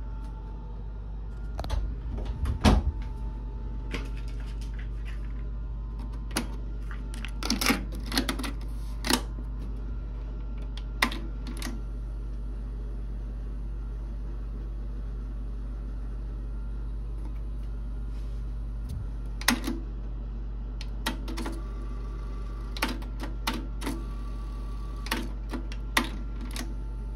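Sharp mechanical clicks and taps at irregular intervals, some in quick clusters, over a steady low hum.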